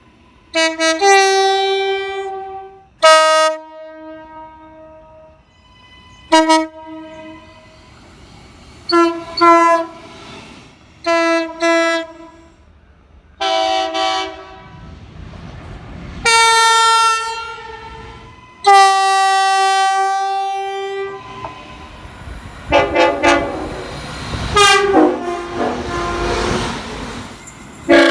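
Locomotive air horns sounding a run of blasts, several quick toots and a few held for about two seconds, each sounding several notes at once. In the last few seconds the rumble of a passing train runs under the horn.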